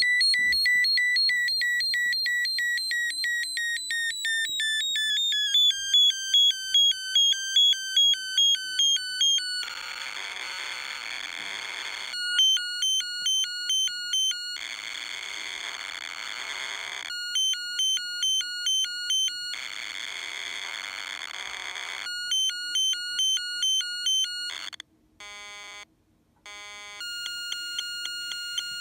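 CQR Cequra Mk2 alarm bell box's electronic siren sounding on a lowered supply voltage. It starts as a tone sliding down in pitch, then switches every couple of seconds between rapid beeping and a harsh rasp. Near the end it drops out briefly and comes back as a steady lower tone.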